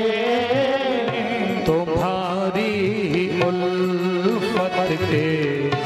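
Devotional Hindi bhajan: a man singing long, sliding held notes between lines of the song, with musical accompaniment.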